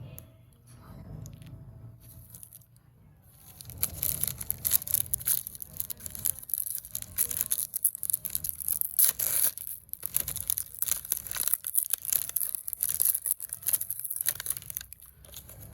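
A crinkly plastic candy wrapper being torn open and crumpled. It starts about three and a half seconds in as a dense, continuous run of sharp crackles.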